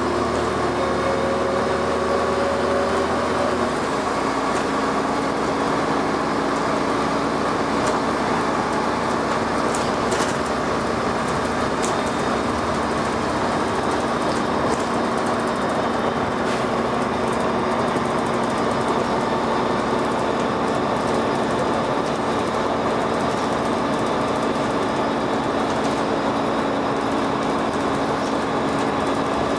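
Dennis Arrow double-decker bus under way, heard from on board: steady engine and drivetrain noise with a few steady whining tones. The note changes about four seconds in, and there are a few light rattles around ten seconds.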